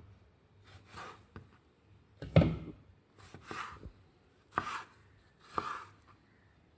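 Large kitchen knife slicing through tomatoes and knocking down onto a wooden cutting board: about five separate cuts roughly a second apart, the one a third of the way in the loudest.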